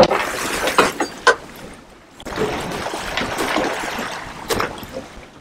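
Water splashing and washing against the side of a fishing boat, with a few sharp knocks; the splashing eases about two seconds in, then picks up again.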